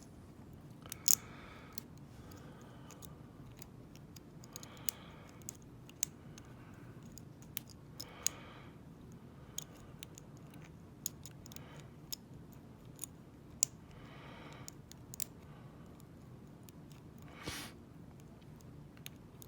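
Faint, scattered clicks of a lock pick and tension wrench working the pin tumblers of a Schlage padlock, about a dozen, with a few soft rasping swells in between.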